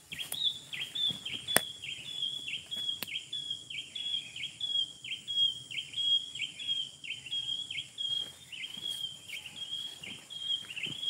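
A bird calling over and over, a high note that drops at its end, about twice a second without a break. Two sharp clicks sound in the first few seconds.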